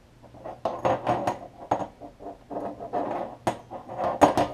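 Test leads and metal alligator clips being handled on a workbench: a run of irregular clicks and rattling knocks as the clips and wires are picked up and moved, over a faint steady low hum.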